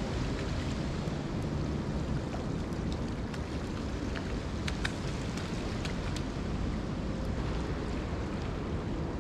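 Steady wind and ocean surf noise, with wind rumbling on the microphone and a few faint ticks.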